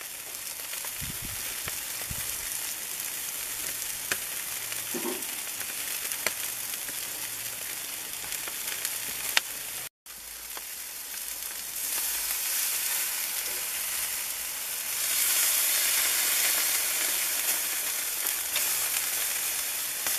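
Meat sizzling on a barbecue grill grate: a steady high hiss of fat frying with scattered sharp pops and crackles. It drops out for an instant about halfway through and grows louder over the last quarter.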